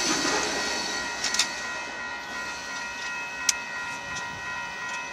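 Union Pacific manifest freight train's cars rolling away on the rails, the rumble slowly fading, with a steady high whine and a few sharp clicks, the loudest about a second and a half in.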